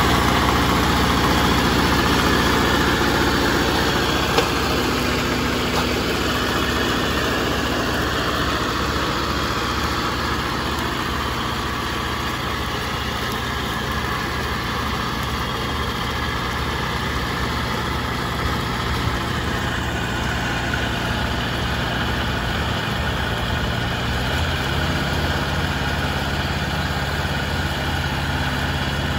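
Mitsubishi MT372 compact tractor's diesel engine running steadily under load while its belly mower deck cuts tall grass. The sound eases a little over the first dozen seconds as the tractor pulls away, and the engine note shifts near the end.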